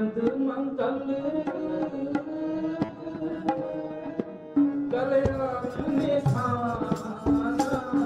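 Sikh keertan: harmonium held chords with tabla strokes keeping a steady rhythm, the melody moving more from about five seconds in.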